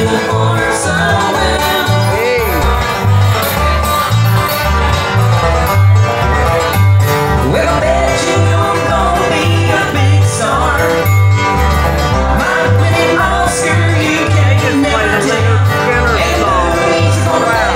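A live band playing music with a steady bass beat.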